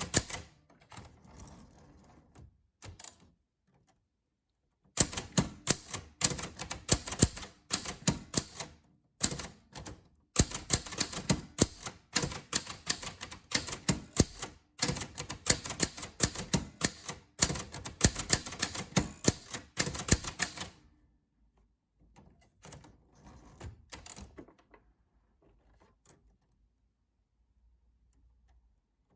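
Typewriter keys striking in quick, uneven runs, with a brief break about ten seconds in. The typing stops about twenty seconds in, leaving a few faint knocks and then near quiet.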